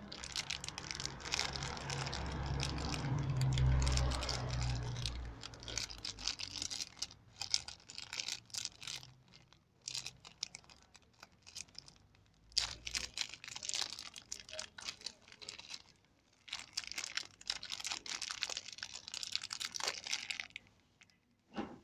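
Thin clear plastic bag crinkling and rustling as it is handled, in uneven bursts with short pauses, with low handling bumps in the first few seconds and a single knock near the end.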